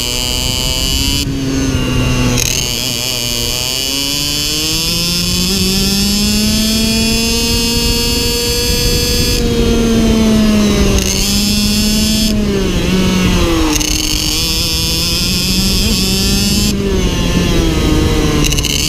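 Iame X30 Super 175 cc two-stroke shifter-kart engine at racing speed, heard onboard. Its note climbs and falls with the throttle and gear changes, and four times it thins out briefly.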